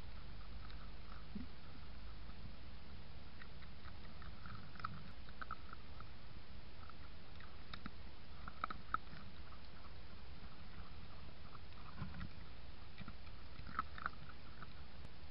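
Red fox cubs feeding at the ground right by the microphone: faint, scattered crunching and clicking of chewing and nosing in the leaf litter, over the trail camera's steady low hum.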